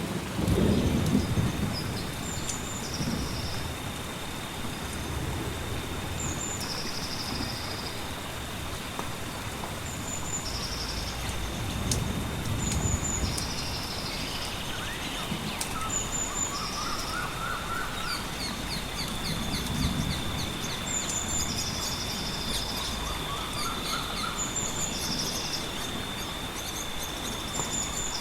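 Layered nature ambience. A bird repeats a short chirping phrase about every three seconds over a steady wash of rain or river noise and a thin, unbroken high tone. Low thunder rumbles swell near the start and twice more, with a few sharp fire crackles.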